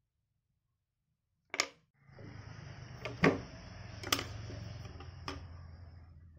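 Dead silence, then a single click; from about two seconds in, a low steady hum with a faint high hiss, broken by three sharp taps of a thin wooden stick knocking on the tabletop.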